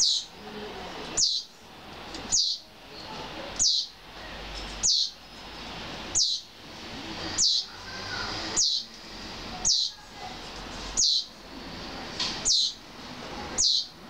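Small songbird repeating a short, high, thin call that slides downward, evenly about once every 1.2 seconds, about a dozen times. It is typical of a recently fledged young bird begging to be fed.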